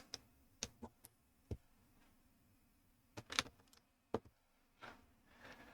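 Faint, scattered clicks of small plastic building bricks being handled and fitted together, some single and some in quick little clusters.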